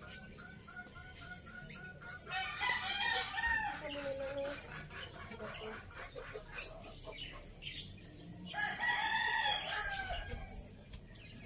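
A rooster crowing twice, one long arching crow about two seconds in and another about nine seconds in, with a quick run of short clucks at the start and a couple of sharp knocks in between.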